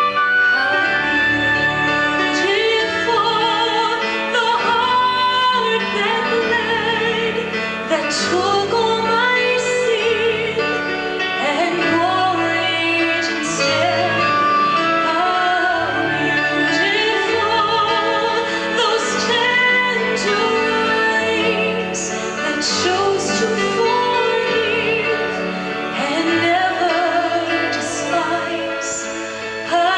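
Vocal group singing a slow song with vibrato in the voices, over instrumental accompaniment.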